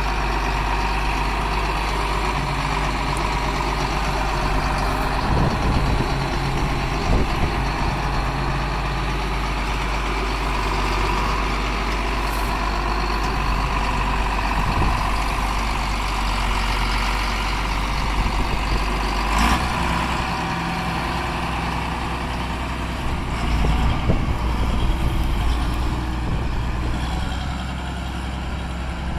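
John Deere 4955 tractor's six-cylinder turbo diesel running steadily as the tractor is driven, its note changing a few times with throttle and load. A single sharp clank comes about two-thirds of the way through.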